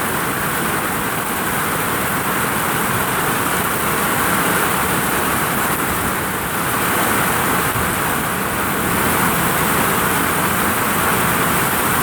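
Heavy rain pouring onto a vinyl roof, a steady dense hiss that swells slightly about four seconds in and again near nine seconds.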